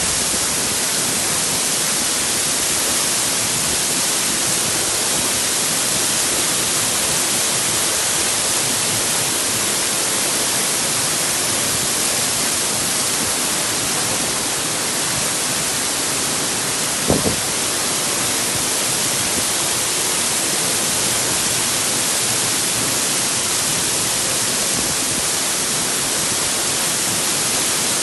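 Waterfall: a steady, loud rush of falling water, with a single short knock about two-thirds of the way through.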